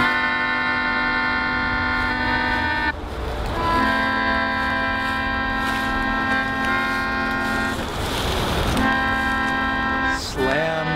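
Melodica playing long held chords, each lasting a few seconds, with short breaks between them.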